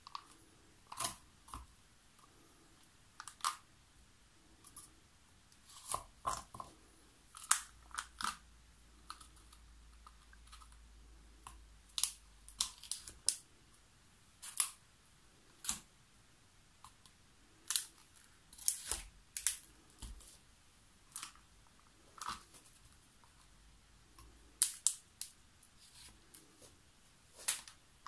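Crinkles and clicks of the plastic sheeting, canvas and paint cups being handled on a plastic-covered acrylic-pouring table. They come in short, sharp bursts at irregular intervals, roughly one a second, sometimes in quick clusters.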